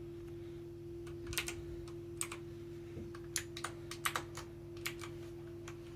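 Keys on a mechanical keyboard with clicky Blue switches being pressed one at a time, about a dozen sharp, irregular clicks, over a steady low hum.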